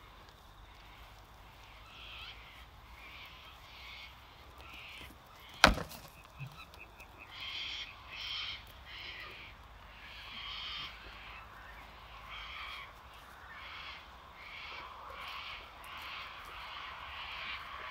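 One sharp, loud crack of two miniature goat bucks clashing horns and heads as they butt each other, about six seconds in. Short high chirps repeat about twice a second through the second half.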